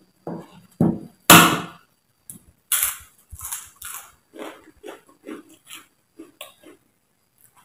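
Fried cracker being crunched and chewed: a few sharp crunches in the first three seconds, the loudest about a second and a half in, then steady crunchy chewing at about two bites a second that stops near the end.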